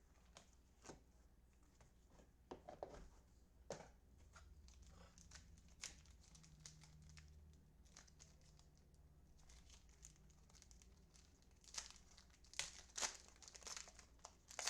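Faint crinkling and tearing of baseball card pack wrappers being opened and handled, a scatter of small crackles that thickens into a louder run of crinkles near the end.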